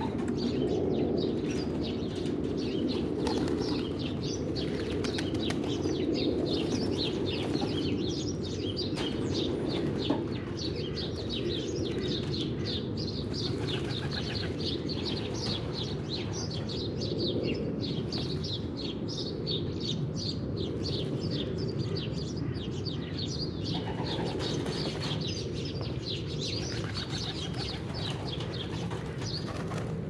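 Pigeons bathing in a shallow tray of water, flapping their wings and splashing, with pigeons cooing steadily throughout.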